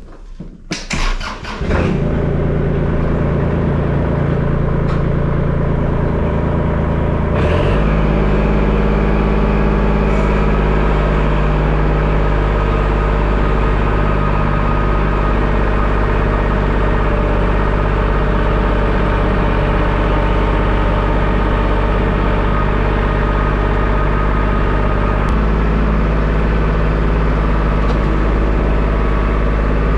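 A motor or engine runs loudly and steadily from about two seconds in. Its sound shifts abruptly about seven seconds in and again near the end.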